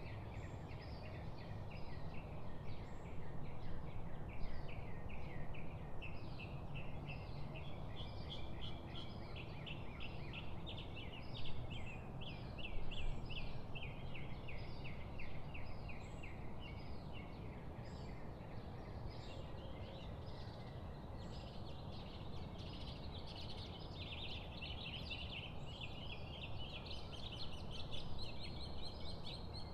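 Birds chirping and chattering continuously in quick, dense runs of short notes, over a steady low background rumble.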